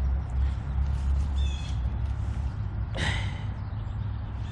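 A bird calling twice over a steady low rumble: a short pitched call about a second and a half in, then a louder, harsher call about three seconds in.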